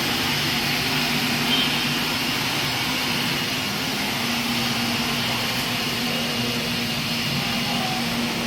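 Vacuum cleaner running steadily: a constant motor hum under an even airy hiss.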